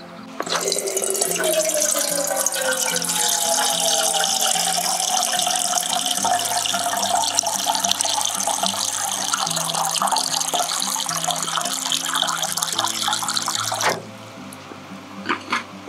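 Water running from a plastic water jug's spigot into an aluminium kettle: a steady splashing stream whose pitch rises as the kettle fills. It starts about half a second in and cuts off sharply near the end as the tap is shut. Background music plays underneath.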